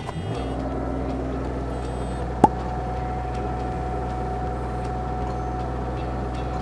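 JCB mini excavator's diesel engine starting up and running steadily. A single sharp clank about two and a half seconds in, after which a thin steady whine sits over the engine as the hydraulics move the boom and auger.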